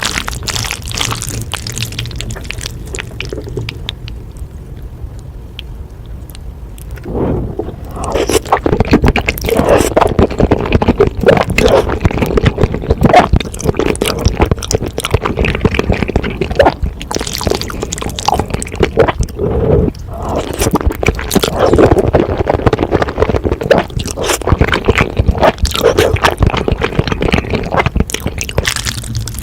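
Close-miked eating sounds: wet chewing, squishing and slurping of food. The first several seconds are quieter and crackly, and the sounds grow loud and dense about seven seconds in.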